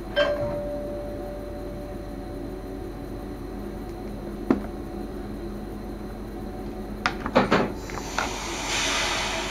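Inside the driver's cab of a Sprinter electric train: a steady hum, with a sharp click and a short tone just after the start, a single click about halfway, then several clacks in quick succession and a brief hiss near the end.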